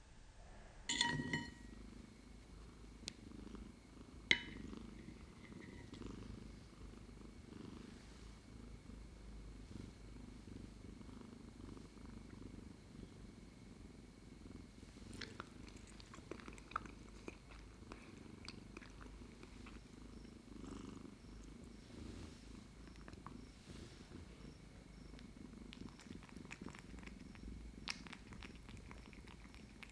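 Cat purring, a steady low rumble throughout. Two light ringing clinks come in the first few seconds. In the second half there are many quick small clicks as the cat licks custard pudding from a small spoon.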